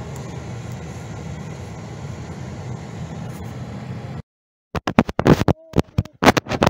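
Steady car-cabin road and engine noise while driving, which cuts off abruptly about four seconds in. About a second later come loud irregular scrapes and knocks of a phone or microphone being handled.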